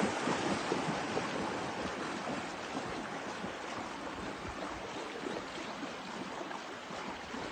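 Steady rush and lapping of river water around a kayak, with faint scattered splashes.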